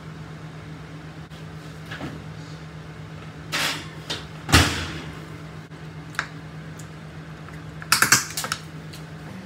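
Kitchen clatter from a metal spoon and a stainless saucepan as rice is served out: a few scattered knocks and clicks, the loudest about four and a half seconds in, and a quick run of clatters near the end, over a steady low hum.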